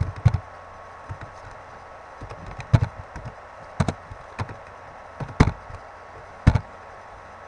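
Single keystrokes on a computer keyboard, sharp separate taps spaced irregularly about a second apart, as values are typed one by one into form fields. A steady faint electrical hum runs beneath.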